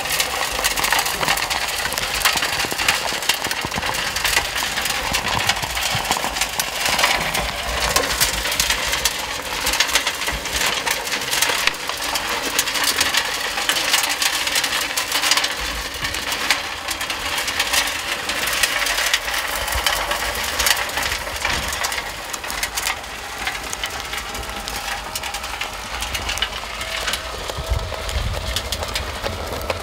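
Scale RC steel mining trommel running: its turning drum tumbles dirt and small stones, giving a continuous dense rattle and clatter over the hum of its small electric drive motors.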